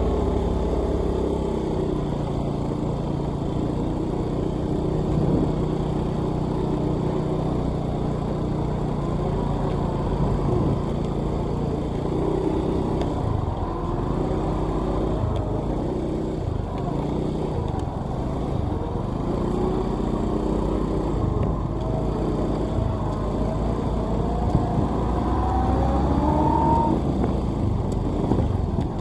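Vehicle engine running while driving on a road, its pitch shifting up and down with engine speed, with other road traffic.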